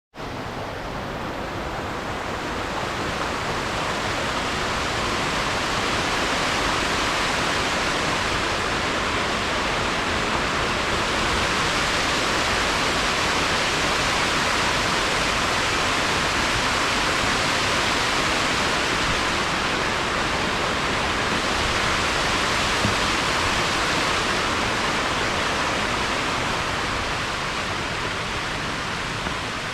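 Waterfall rushing steadily, an even hiss of falling water that swells a little over the first few seconds and then holds.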